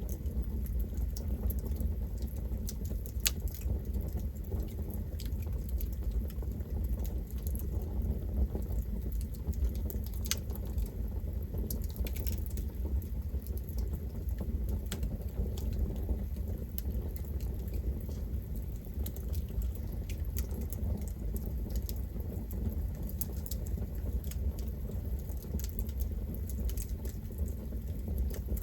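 Campfire burning with a steady low rumble of flame and scattered sharp crackles and pops from the burning wood.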